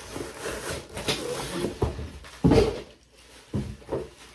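Wool flannel baseball jersey and its paper packaging rustling and flapping as the jersey is pulled out of the box and shaken open, with a louder bump about two and a half seconds in.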